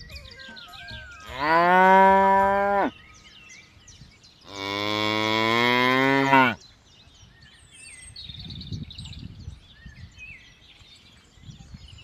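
Water buffalo mooing: two long, loud moos about a second and a half apart, the second one lower and longer. Faint bird chirps sound in the background.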